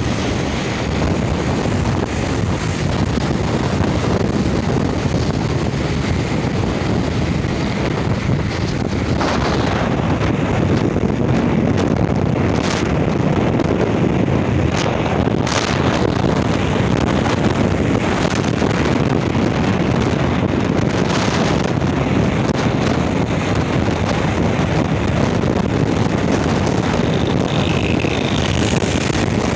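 Steady wind rushing over the microphone of a motorcycle moving at speed, mixed with engine and road noise. A few brief louder gusts or knocks come in the middle.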